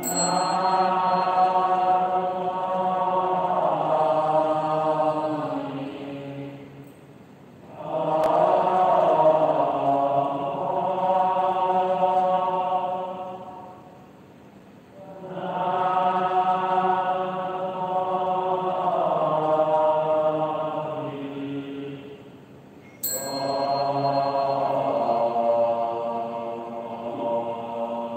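Slow Buddhist liturgical chanting during bowing to the Buddha: long, drawn-out sung phrases on sustained notes, four of them, with short breaks between.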